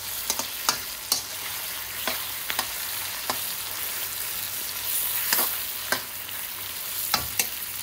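Onions, peppers, ginger and garlic sizzling in oil in a cast iron karahi, with a steady hiss, while a metal spoon stirs them and clicks against the pan at irregular moments.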